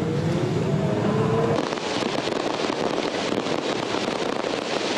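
Fireworks crackling and popping in dense rapid clicks, starting abruptly about a second and a half in. Before that there is a low rumble with a rising tone.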